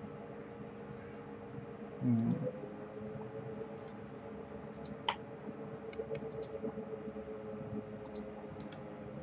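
Faint, scattered computer clicks from a mouse and keyboard over a steady low hum, with a brief murmur of a voice about two seconds in.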